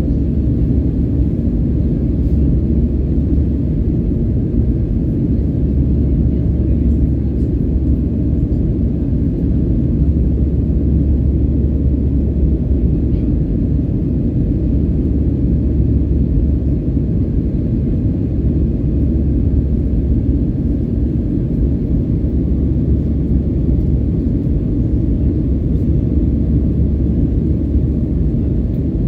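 Steady low rumble of an Airbus A319's CFM56 jet engines and the airflow, heard inside the cabin during the climb after takeoff.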